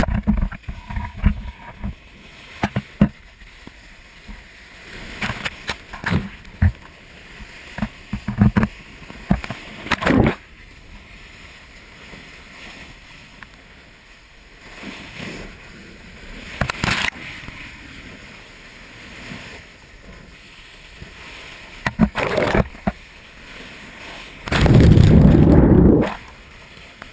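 Sea water splashing and sloshing around a camera at the ocean's edge where a stream of lava pours into the sea, with scattered sharp cracks and pops. Near the end a loud rush as a wave washes over the camera for about a second.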